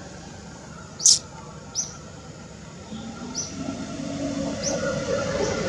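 Forest ambience: short, high chirps repeat about once a second, one much louder about a second in. From about three seconds in, a lower murmur with a faint held tone builds up steadily beneath them.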